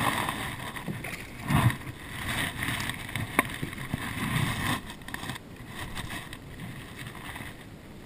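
A hooked largemouth bass splashing at the surface beside a small fishing boat as it is landed, over a steady wash of wind and water noise. There is a low knock about a second and a half in and a sharp click about three and a half seconds in, from handling the rod and boat.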